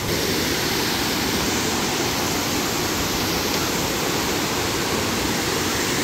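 Waterfall rushing, a steady, even wash of falling water with no breaks.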